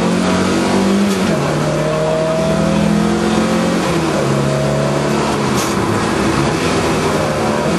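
Lada 2101 rally car's engine heard from inside the cabin at stage speed. Its pitch drops about a second in, climbs again around two seconds, falls around four to five seconds and rises near the end as the driver lifts off and accelerates through the bends.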